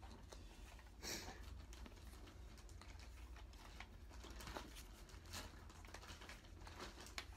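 Faint, irregular plastic clicks and rustles as foam darts are pushed one at a time into a Nerf blaster's drum, with a louder rustle about a second in.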